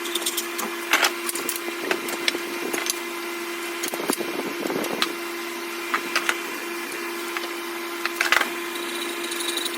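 Hand-saw work on pine: irregular wooden knocks and scrapes, over a steady low hum.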